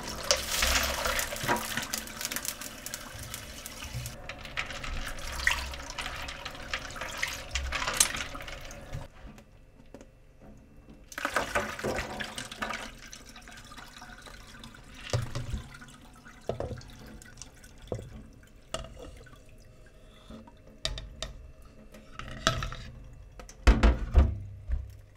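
Tap water running into a bowl of freshly boiled udon noodles as they are rinsed in cold water to firm them. The flow stops about nine seconds in, and is followed by intermittent splashing and dripping as the noodles are handled and drained, with a few dull knocks near the end.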